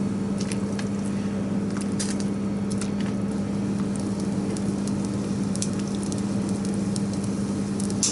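Steady hiss and hum of a gas range burning under a pot of hot water, with scattered light clicks and taps as wooden cooking chopsticks stir mackerel pieces being blanched in the pot; the loudest tap comes near the end.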